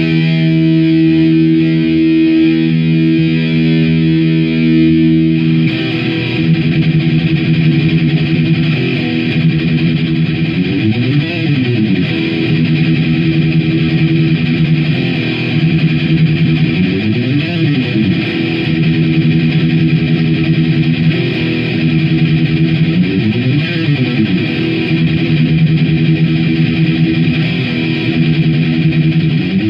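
Electric guitar played through distortion and effects: a held chord, then a repeating riff of sustained notes in which the pitch swoops down and back up about every six seconds.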